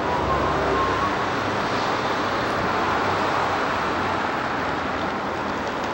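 Steady hum of city road traffic, cars passing.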